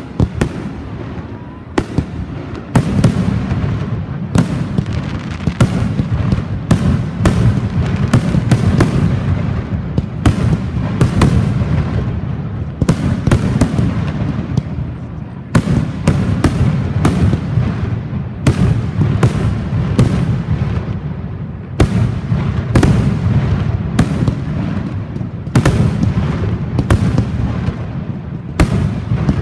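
Fireworks display: dozens of sharp bangs, one or two a second, over a continuous low rumble of bursting shells.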